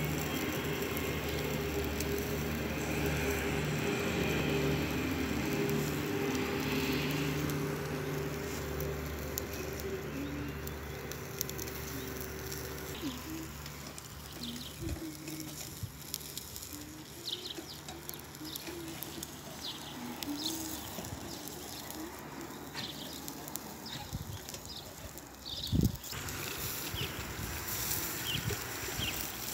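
A steady motor hum for about the first half, then a quieter stretch with a single loud knock about twenty-six seconds in. Near the end comes a hiss as water is sprinkled from a bottle onto the hot coals of a charcoal grill.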